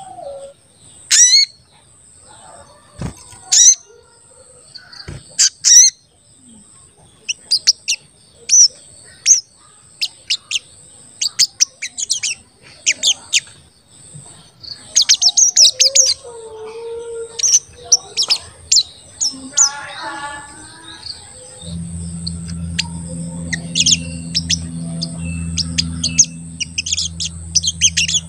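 A caged sogon, a sunbird, giving sharp, high 'cuit cuit' chirps in quick bursts, with short pauses between the runs. A faint steady high whine runs underneath, and a low steady hum comes in about three quarters of the way through.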